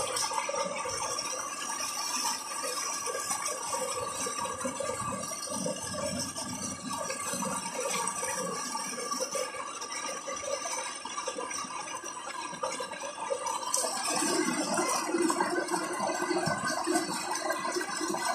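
Water gushing steadily from the 3-inch discharge pipe of a running electric water pump, with a steady tone from the pump mixed in. The rushing sound shifts lower about 14 seconds in.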